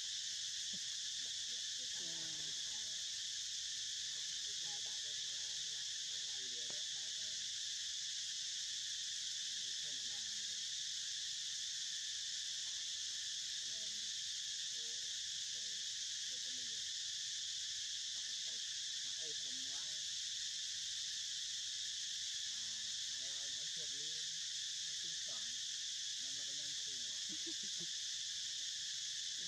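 A steady, high-pitched drone of calling insects, holding at an even level without a break.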